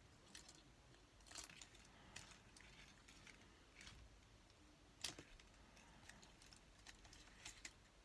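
Small scissors snipping and handling a strip of plastic star decorative tape: a few faint, scattered snips and crinkles, the sharpest about five seconds in.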